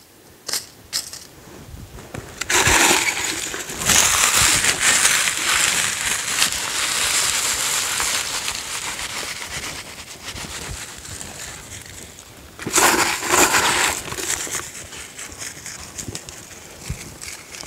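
Dry leaf litter crackling and rustling as it is handled, scattered and pressed down over a buried trap, in two spells: a long one starting a few seconds in and a shorter, loud one later.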